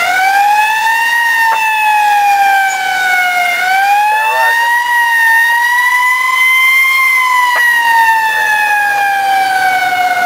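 Fire engine siren wailing. Its pitch sweeps up sharply at the start, then drifts slowly up and down, climbs highest about seven seconds in and slides down toward the end.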